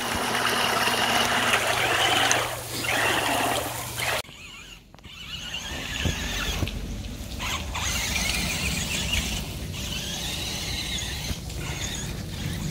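Hot Wheels RC Terrain Twister's small electric motors whining as its screw-shaped auger wheels churn pool water, a steady high whine over splashing. This cuts off suddenly about four seconds in. After that the toy's motor whine is fainter, rising and falling as it drives over grass.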